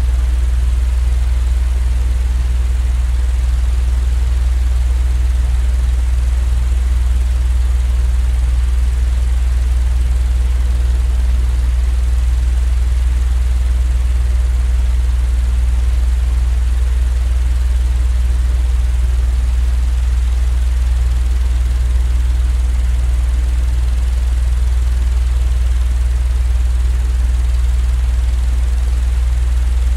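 Steady, unchanging low hum with a fainter hiss spread above it: a continuous noise track for lulling a baby to sleep.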